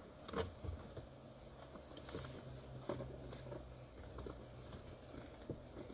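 Faint scrapes and light, irregular taps of a screwdriver prying at the plastic edge of a car's dash speaker grille.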